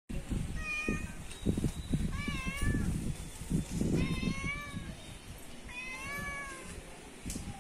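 A domestic cat meowing four times, each meow about half a second long and rising then falling in pitch. A low rumbling noise sits underneath through the first half.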